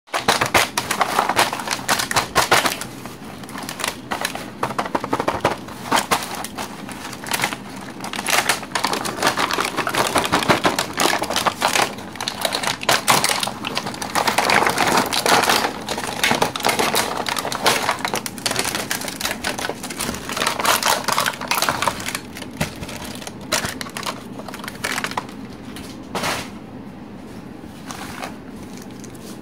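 Clear plastic packaging of a toy doctor set crinkling and crackling as hands press on it and pull it open, in a dense run of irregular clicks that eases off near the end.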